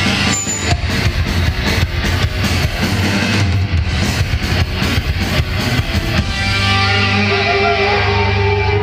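Live heavy metal band playing loud, heard from the crowd: fast drumming under distorted electric guitar. About six and a half seconds in the drumming stops and held notes ring on, with wavering glides in pitch above them.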